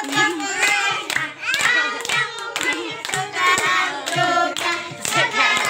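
A small group of women and children singing a birthday song together, with hands clapping along to a steady beat.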